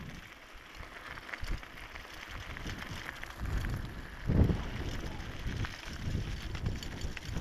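Wind buffeting the microphone of a camera on a bicycle riding fast downhill on a paved road, over the rumble of the tyres and a few light clicks from the bike. The gusts swell and fall, strongest about four seconds in.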